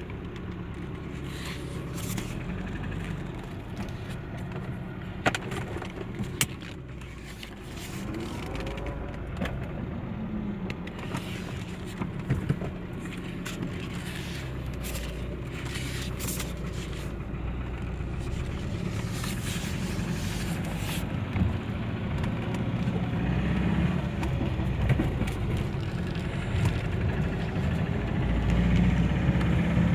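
Car driving, the engine and road noise growing louder as it picks up speed, with scattered sharp knocks: the same knock while driving that the owner is demonstrating.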